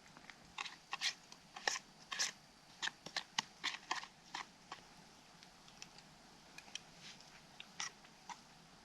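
Someone eating a chocolate pudding pie with a graham-cracker crust: a run of faint, irregular crunching clicks, thinning out after about five seconds.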